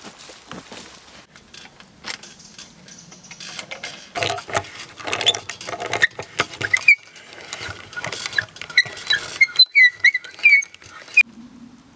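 Carpenter's hand brace turning an auger bit into a timber post joint: a dense run of creaking and clicking as the bit cuts the wood, with short sharp squeaks near the end.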